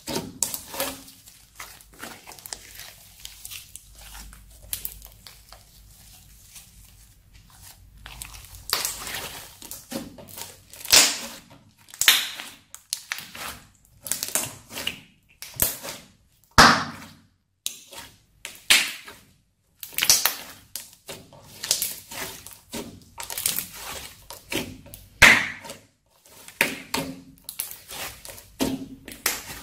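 Hands squeezing, pressing and folding a crunchy slime, giving irregular crackling and popping sounds. The crackles are sparse and soft for a few seconds near the start, then come thick and loud.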